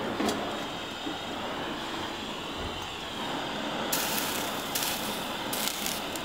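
Small propane torch hissing steadily as it heats a high-carbon steel blade for tempering. From about four seconds in come several short, sharp sizzles as water droplets hit the hot steel and bounce off, a sign the blade is at roughly 350 to 400 °F.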